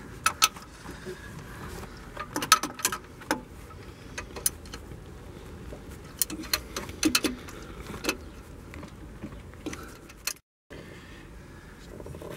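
Scattered sharp metallic clicks and clinks in small clusters: a hand ratchet wrench being worked to tighten the water pump's mounting bolts.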